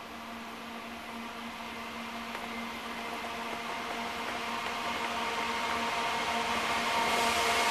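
Diesel locomotives at the head of a container train approaching, a steady engine hum growing steadily louder as they come on.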